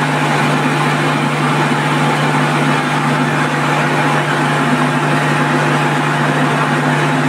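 Electric fire pump set running steadily: the motor and its centrifugal pump give a constant low hum under an even mechanical whir, with no change in speed.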